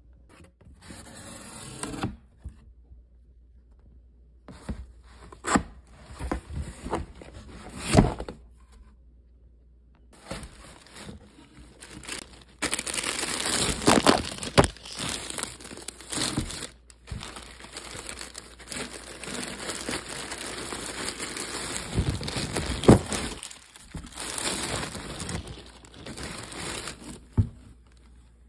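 Cardboard shipping box being torn open by hand, with sharp rips of tape and cardboard and a few knocks. This is followed by a long stretch of crinkling and rustling packaging as the plastic-bagged contents are handled.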